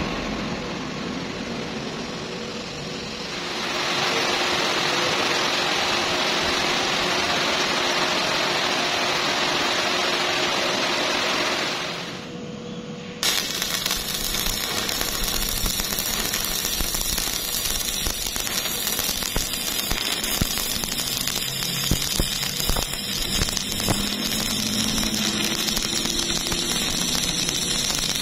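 A steady hiss with a faint hum for the first twelve seconds; then, after a short dip about halfway in, a shielded-metal-arc (stick) welding arc starts suddenly and crackles and spits steadily as the flux-coated electrode runs a horizontal fillet weld on rusty steel plate.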